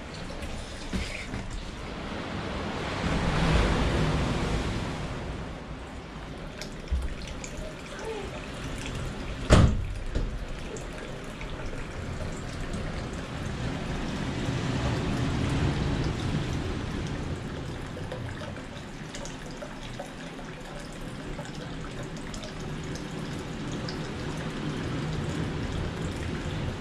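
Hot-spring water trickling steadily from a wooden spout into an open-air bath. A single sharp knock comes about nine and a half seconds in.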